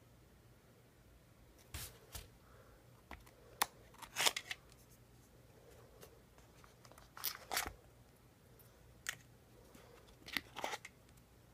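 Phone box packaging handled by hand: the cardboard box tray and the packed cable and accessories give scattered sharp clicks and brief rustles, the loudest about four seconds in and again around seven and a half seconds.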